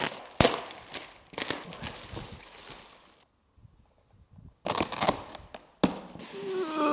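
Plastic stretch wrap being slit and torn off a cardboard shipping box, then the cardboard flaps being pulled open, in irregular rustles, crinkles and sharp snaps. Near the end a drawn-out vocal sound with a steady pitch begins.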